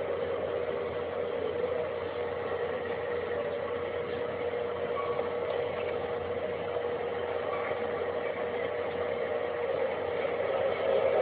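A steady humming drone holding one tone, with a hiss-like haze over it, swelling louder near the end.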